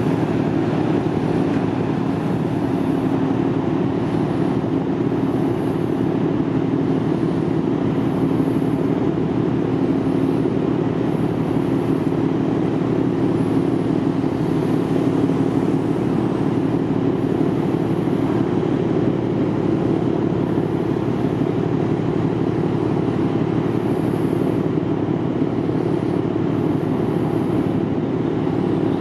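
Fujitrans RO-RO ship's diesel machinery running at the berth: a steady, unbroken low drone with a held hum in it.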